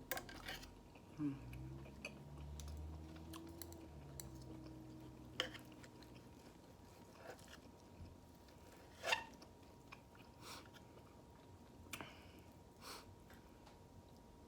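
Close-up chewing of ribeye steak, with sharp wet mouth clicks every few seconds. A low hummed 'mmm' runs through the first few seconds.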